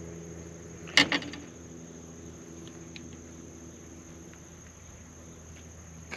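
Fishing tackle being handled in a boat: a sharp clack about a second in, a quick follow-up or two, then a few faint light ticks. Under it runs a steady low hum of several even tones.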